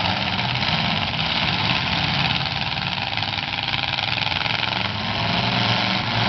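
Demolition derby cars' engines running together with open exhaust pipes through the hood, a loud, steady engine din.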